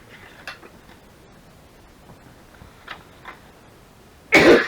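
A few faint light ticks, then one sharp cough near the end.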